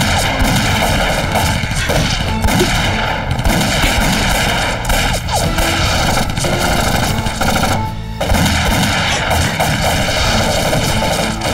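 Gunfight sound effects of a war drama: rapid rifle and machine-gun fire with booms, laid over a dramatic music score, with a short break about eight seconds in.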